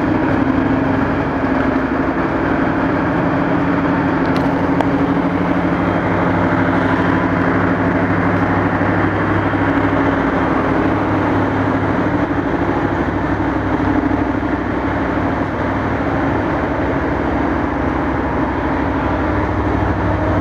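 Diesel engines of a waiting passenger train idling at the platform: a steady, unbroken drone of low hum tones under a constant rushing noise.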